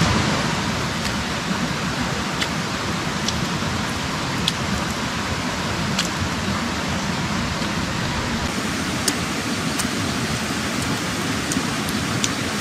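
Steady rushing noise, like running water or rain, with a few faint clicks scattered through it.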